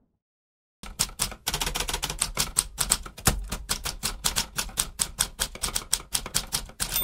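Typewriter keys clattering in a fast, uneven run, with a bell ding right at the end, as at a typewriter's carriage return.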